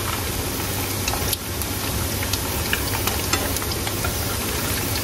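Vegetarian burger patties frying in hot oil: a steady sizzle with scattered small pops and crackles.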